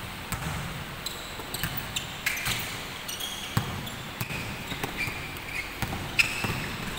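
Basketball dribbled on a hardwood court, a series of irregular sharp bounces echoing in a large gym, the strongest about six seconds in, with short high squeaks of sneakers on the floor.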